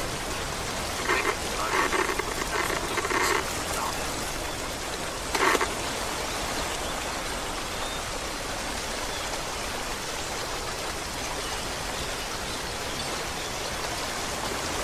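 Steady rushing water noise, with faint indistinct speech in the first few seconds and a brief sound about five seconds in.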